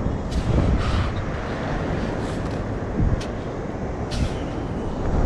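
Low, steady rumble of surf, with a few brief clicks.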